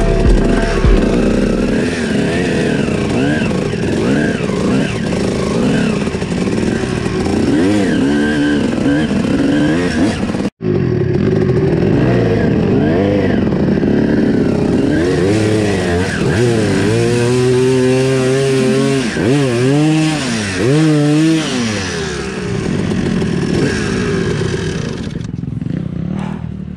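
Enduro dirt-bike engine revving up and down as it is ridden over a muddy, rutted trail, the pitch climbing and dropping again and again. The sound cuts out for an instant about ten seconds in.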